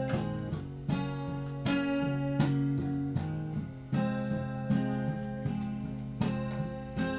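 Acoustic guitar strumming and picking chords in a country song's instrumental passage between sung lines, with a steady strum roughly every three-quarters of a second.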